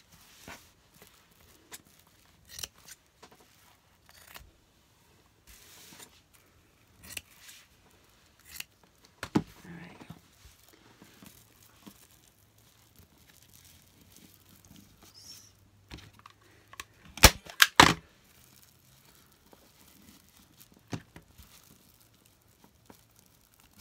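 Scissors snipping fabric and the fabric rustling as it is handled, with scattered small clicks. A quick cluster of three sharp, loud clicks comes a little past the middle.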